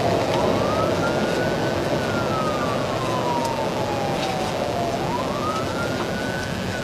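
Police car siren on a slow wail, its pitch rising and then falling about twice, over steady road and engine noise from the pursuing patrol car.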